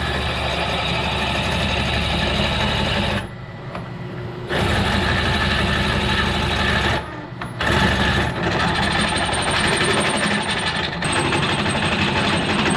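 Drill press running with an 11/16-inch bit cutting into a stone block, a steady grinding of the bit in the stone. The cutting noise drops away briefly twice, about three and seven seconds in.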